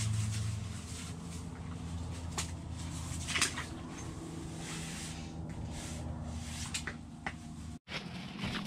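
Light clicks, knocks and rustling from gear handled at an ice-fishing hole, over a low steady hum. The sound drops out completely for a moment near the end.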